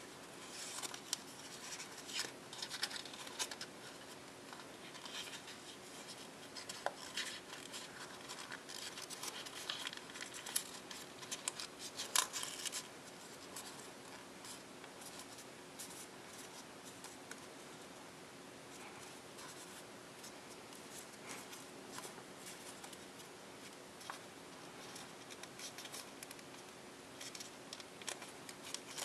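Paper being folded and creased by hand: crisp rustling and crackling from a sheet of printed copy paper, dense for the first dozen seconds or so, then thinning to scattered small clicks and creases.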